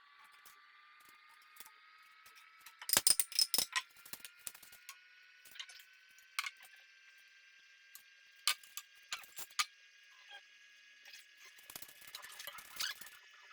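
Clusters of sharp clicks and knocks from workshop handling. The loudest flurry comes about three seconds in and more follow near the end, over a faint steady whine that slowly rises in pitch.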